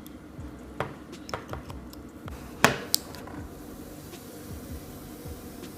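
Light clicks and taps of a smartphone being handled on a hard surface: a few sharp ticks, the loudest pair about two and a half seconds in.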